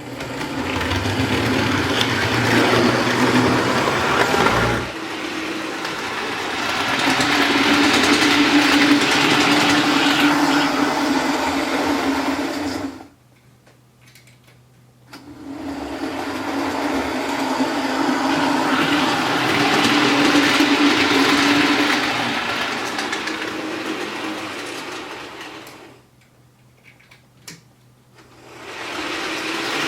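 Bachmann OO gauge Class 158 DMU model running on its track on a test run after a broken motor wire was resoldered, its small electric motor and drive whirring. The whirring swells and fades, and drops away twice: a little under halfway through, and again near the end.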